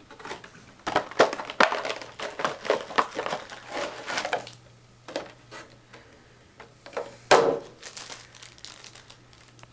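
Plastic packaging crinkling and crackling as it is handled and unwrapped, in a dense run of irregular crackles over the first few seconds, with a single louder crackle later on.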